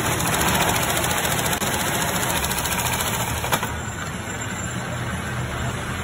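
Boot-making machinery running with a steady low hum and noise. A sharp click comes about three and a half seconds in, after which the sound is a little quieter.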